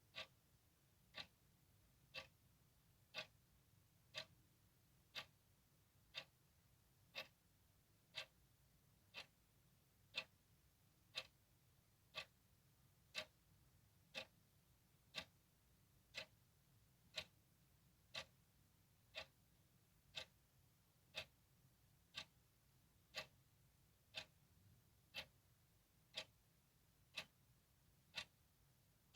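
Clock ticking steadily, one crisp tick a second.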